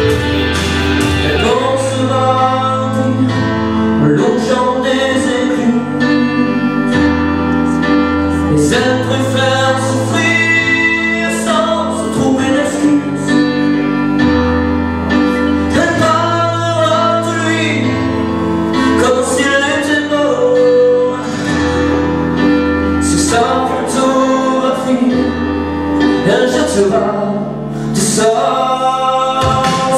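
A man singing a song into a handheld microphone over instrumental accompaniment with a steady bass line.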